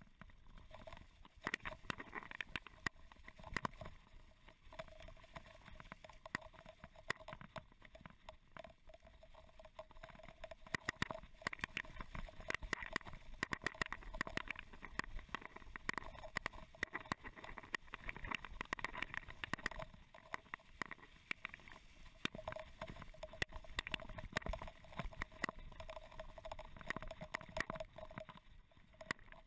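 Mountain bike descending a rough trail covered in fallen leaves: a dense, irregular run of rattles and knocks from the bike over the hiss of tyres rolling on leaves and dirt.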